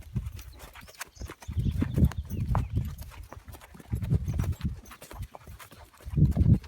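Horse's hooves clip-clopping, a run of sharp clicks with heavier low thuds coming in patches.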